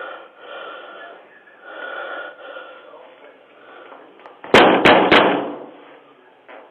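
Three sharp bangs in quick succession, about a third of a second apart, after a few seconds of muffled background noise, picked up by a doorbell camera's microphone.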